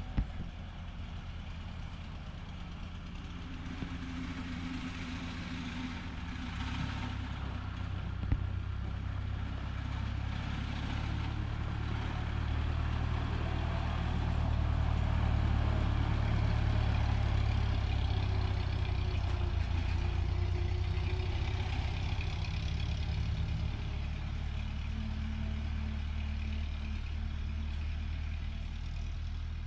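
1944 Ford 2N tractor's four-cylinder flathead engine running steadily as the tractor is driven, growing louder towards the middle and easing off again later. Two short knocks, one right at the start and one about eight seconds in.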